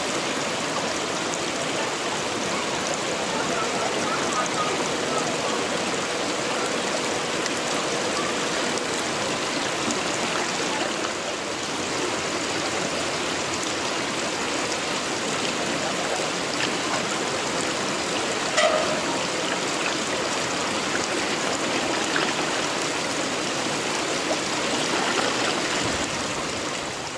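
Steady rushing of running water, with one short knock about two-thirds of the way through.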